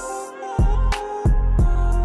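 Background music: an instrumental track with a steady drum beat, deep bass notes and sustained synth-like tones.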